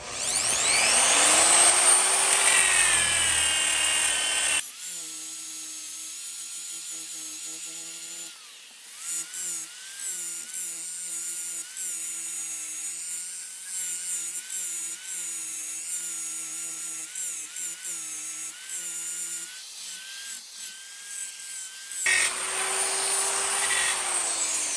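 Angle grinder fitted with a 60-grit hook-and-loop sanding disc, grinding paint and metal off an axe head. It spins up with a rising whine, then runs with a wavering pitch that breaks off and picks up again as the disc bears on the steel, and near the end it runs up again and winds down with a falling pitch.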